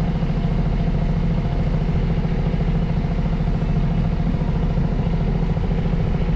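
A sailboat's auxiliary engine running steadily under way while motor sailing, a constant low drone with a rapid even pulse.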